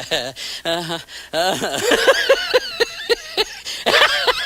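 People's voices with laughter: a run of quick laughing pulses, about five a second, through the middle.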